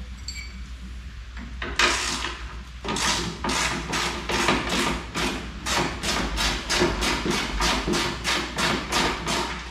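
Ratchet wrench worked back and forth on a bolt in quick, even strokes, each stroke a short burst of rasping clicks, about three a second. It starts about two seconds in.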